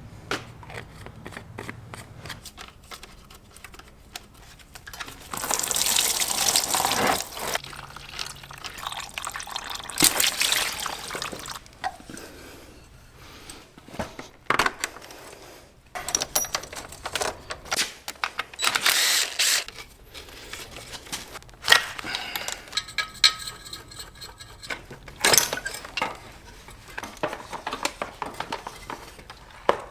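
Coolant being drained from a motorcycle engine: liquid pours and splashes into a container in several bursts of a second or two, among scattered clicks and knocks of tools and parts.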